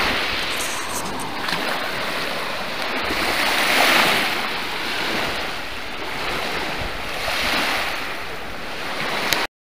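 Lake Huron waves washing in, a steady surf that swells about four seconds in and again near seven and a half seconds, then cuts off suddenly near the end.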